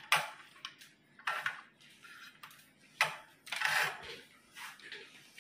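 Scattered light clicks, taps and short scrapes of tools and an engine-control circuit board being handled on a workbench, with a longer scrape a little past halfway through.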